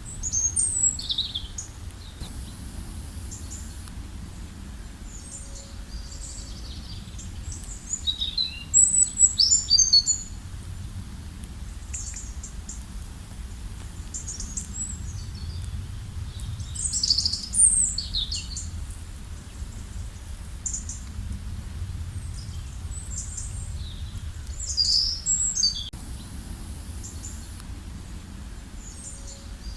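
Several small birds chirping in short high clusters of quick falling notes, over a steady low rumble.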